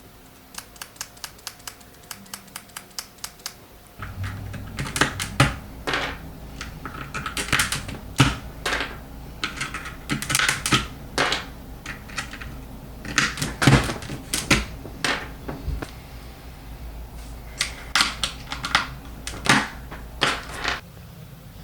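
Typing on a Keychron K2 V2 mechanical keyboard with Outemu Silent Lemon V3 switches, PE foam, an aluminium case and PBT keycaps, giving muted keystrokes. First comes a quick, even run of light taps. About four seconds in, louder irregular bursts of typing start over a low steady hum.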